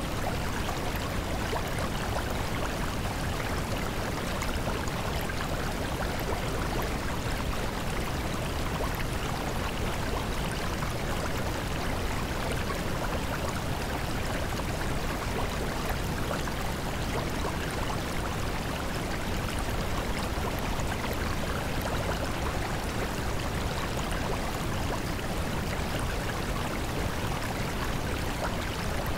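Steady, even rushing noise with no tones, rhythm or breaks, the background masking track of a subliminal affirmation recording; the repeated affirmations are mixed beneath it too faint to make out as words.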